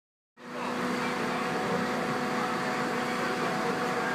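Fire engine running at a steady speed, a constant engine hum over a rushing noise; it cuts in abruptly just after the start.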